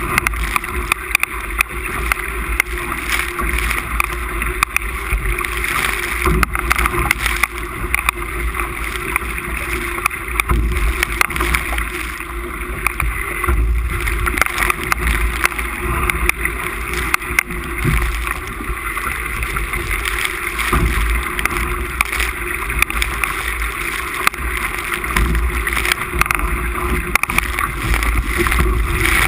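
Wind buffeting the microphone over water rushing and splashing past a Musto skiff's hull as it sails fast in gusty wind, with frequent short slaps and knocks throughout.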